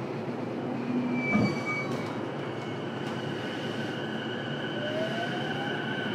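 Inside a JR East E233-series electric commuter car standing at a platform with its doors open: a steady hum and rumble. There is one sharp thump about a second and a half in, and faint steady tones come in about halfway through, with a short rising tone near the end.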